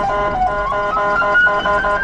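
Police car sirens: one wailing with a slow fall and rise in pitch, against a second electronic tone stepping quickly between several pitches, about four steps a second.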